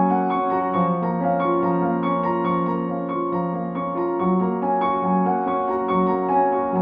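Background piano music: a flowing pattern of quick repeated notes over held low notes.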